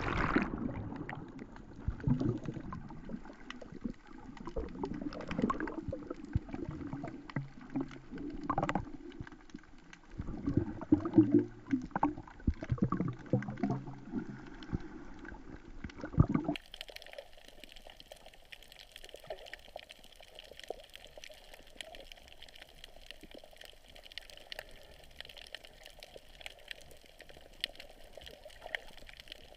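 Sea water sloshing and gurgling around a GoPro camera in its housing, with irregular bubbling and small knocks. About halfway through it changes suddenly to a steadier, quieter underwater hiss with a fine crackle.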